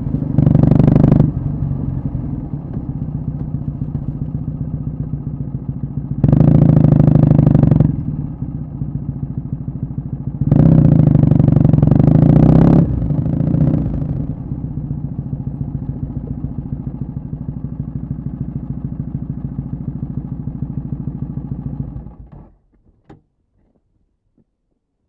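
Kawasaki W650's air-cooled vertical-twin engine, breathing through a short stainless Caberton muffler, running with three louder stretches of raised revs, then idling steadily. It is switched off about 22 seconds in and stops abruptly.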